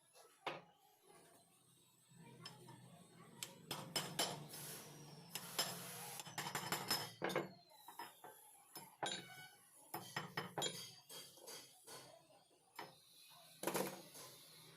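Metal parts of an old rusty pipe wrench clinking and knocking against each other and against metal in irregular strikes. A low hum and a rasping noise run underneath for a few seconds, between about two and seven and a half seconds in.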